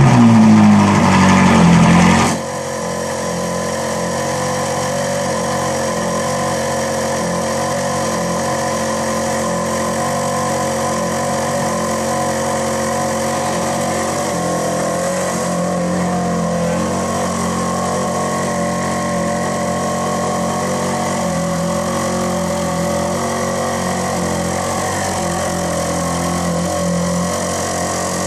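Ferrari 458 Italia's naturally aspirated V8 just after starting, first flaring loudly with its pitch sinking. About two seconds in it drops abruptly to a steady idle.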